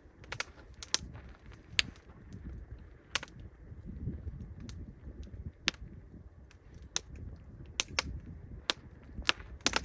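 Campfire crackling, with about a dozen sharp, irregular pops from the burning wood over a low rumble.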